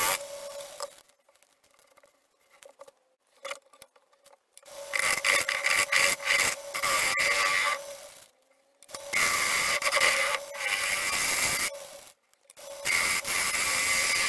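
Gouge cutting into a spinning pine and plywood bowl blank on a wood lathe. The cut stops right at the start, leaving about four seconds of faint lathe hum with a few small clicks. Then come three cutting passes of two to three seconds each with short pauses between, over the steady hum of the lathe.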